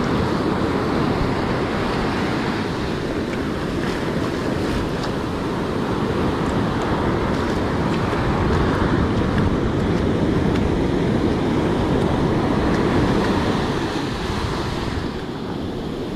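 Ocean surf washing up a sandy beach, mixed with wind noise on the microphone: a steady rush without a break.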